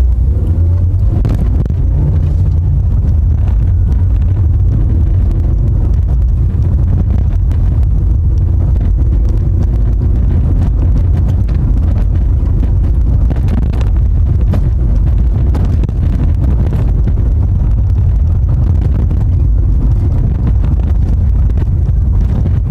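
Car engine and tyre noise heard from inside the cabin while driving, a steady heavy low rumble. The engine note rises in the first couple of seconds as the car speeds up, then holds.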